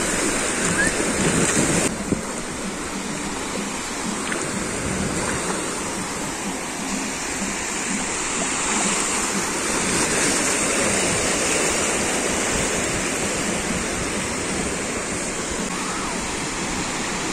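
Ocean surf: small waves breaking and washing up the sand at the water's edge, a steady rush of water, a little louder in the first two seconds.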